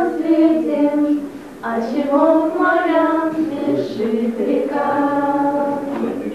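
Several women's voices singing a song together in held, drawn-out notes, with a short break between phrases about a second and a half in.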